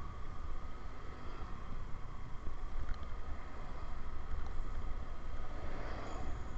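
Riding a motorbike: wind rumble on the microphone over the bike's engine and road noise, with a faint steady whine and a brief louder rush near the end.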